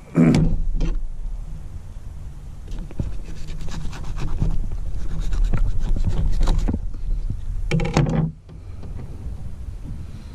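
A fillet knife scraping and cutting into a pompano on a plastic fish-cleaning table, with a run of quick scratchy strokes through the middle. Two loud rushing bursts come, one at the start and one about eight seconds in, over a steady low rumble.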